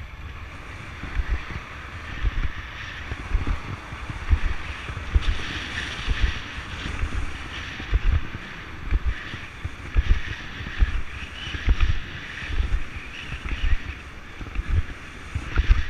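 Longboard wheels rolling over asphalt with wind buffeting the microphone, and low thumps about once a second as the rider pushes along.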